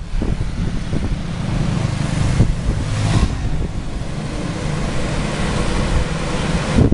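Street traffic with wind buffeting the microphone, heard from a moving pedal rickshaw: a steady rumble of road noise and cars and motorbikes, with a brief swell about three seconds in.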